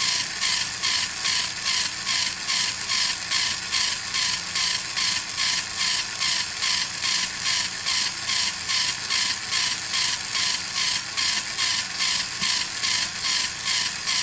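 Steam-engine chuffing: a hiss that pulses evenly about three times a second, with a faint wavering tone underneath.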